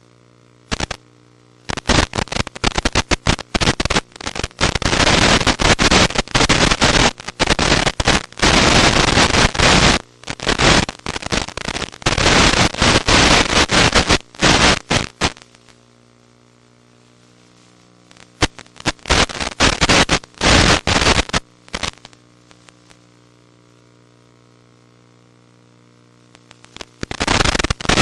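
Radio static from an analog FPV video link: loud hiss cutting in and out abruptly in many bursts over a steady low hum, the sign of the link's signal breaking up. There is a longer quiet stretch after the middle before the hiss returns near the end.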